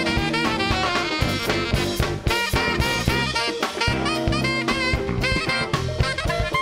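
Saxophone solo over a live blues band: quick runs of notes with bent pitches, backed by a drum kit and a steady bass line.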